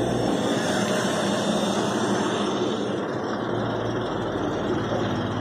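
Maruti Suzuki WagonR engine idling steadily with the bonnet open while HHO (hydrogen-oxygen) gas is fed into it for engine carbon cleaning.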